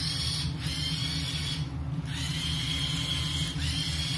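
Small electric drive motors of a tracked robot rover running its tank treads: a steady hum with a high whine that drops out briefly and comes back partway through, shifting slightly in pitch.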